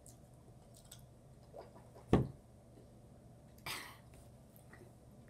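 Quiet room broken by a single dull thump about two seconds in, then a short breathy puff of air a second and a half later.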